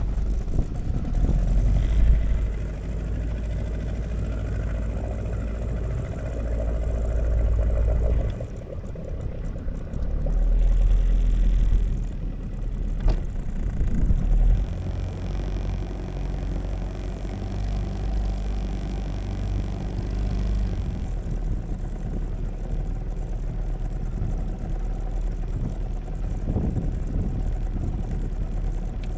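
Small boat's motor running at low cruising speed. It gets louder and softer a couple of times in the first half, then runs evenly.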